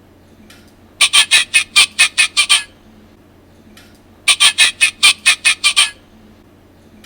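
Recorded penguin call played from a children's sound book: two bursts of rapid squawking pulses, each about a second and a half long, some three seconds apart.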